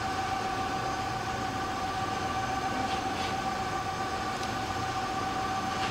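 Hardinge HLV-H precision toolroom lathe running with its spindle turning at a steady speed: an even whine over a low machine hum.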